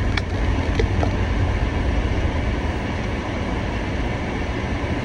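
Steady low rumble of a car heard from inside its cabin, with a few faint clicks in the first second.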